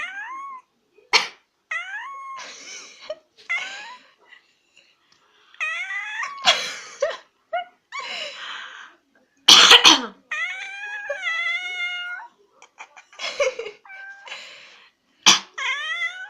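A person coughs sharply several times, and a domestic cat answers with meows that rise and fall right after the coughs, one drawn out longer than the rest.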